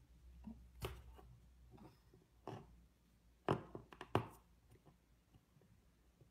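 A kitten playing with a string toy inside a cardboard box: a few irregular knocks and thumps against the cardboard, the two loudest a little past the middle.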